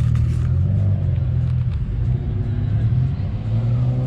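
Engine of a 500 hp Nissan Z car running at a steady cruise: a low, even drone.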